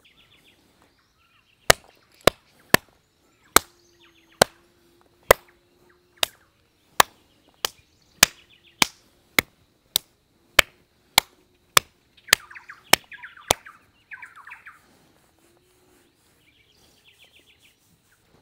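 A steady run of about nineteen sharp knocks, roughly one every 0.6 seconds, starting about two seconds in and stopping a little past the middle. Birds chirp around them, and a faint low steady hum sits under the middle of the run.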